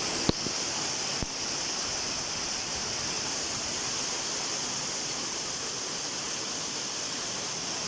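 Heavy downpour: a steady, dense hiss of torrential rain, with two brief sharp knocks in the first second and a half.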